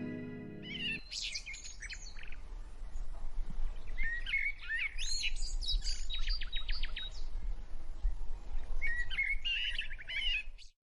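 Quaker parrots (monk parakeets) chirping in three bouts of quick, high chirps and gliding calls with short rapid chatters, pausing between bouts. Harp music fades out in the first second, and the sound cuts off suddenly near the end.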